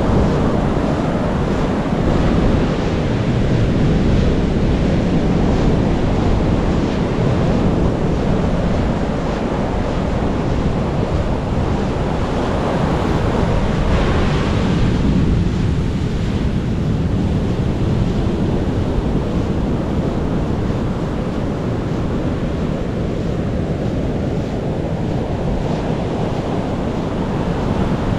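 Ocean surf washing steadily onto a beach, with one wave breaking more loudly about halfway through. Wind rumbles on the microphone underneath.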